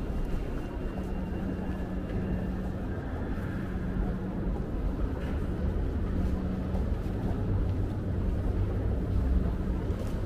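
Steady low rumble of urban background noise with a faint steady hum underneath.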